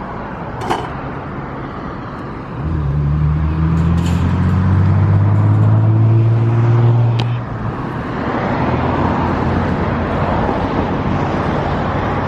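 A motor vehicle engine revs up, its low pitch rising slowly for about five seconds before it drops away, over a steady wash of traffic noise. A few sharp clicks stand out.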